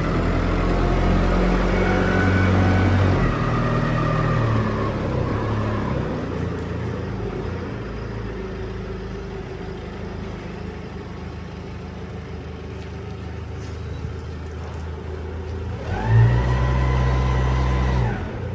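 A vehicle engine runs steadily. About sixteen seconds in it revs up for a couple of seconds, with a whining tone, then drops back.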